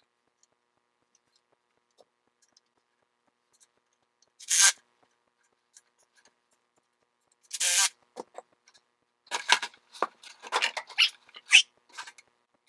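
Hands working on the surface cleaner's fittings. There are two short rasping rubs about three seconds apart, then a quick run of short scrapes and rubs near the end.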